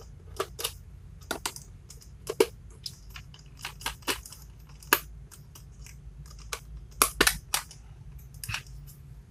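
Irregular sharp clicks and taps of hard plastic and a metal screwdriver as the battery cover of a toy's plastic remote control is unscrewed and taken off, with a louder cluster of clicks about seven seconds in.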